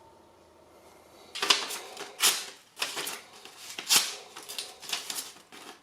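Steel block plane blade being honed with a series of raspy scraping strokes, starting about a second and a half in, roughly one to two strokes a second.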